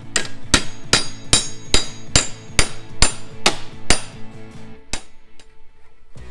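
Hammer striking the edge of a sheet-steel repair panel to fold it over. There are about ten even, ringing blows a little over two a second, then a few lighter taps that stop about five seconds in.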